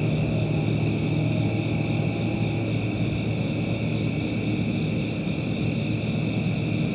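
Steady outdoor night-time ambience from a wildlife camera's microphone: a constant high trilling chorus over a low steady drone, unchanging throughout.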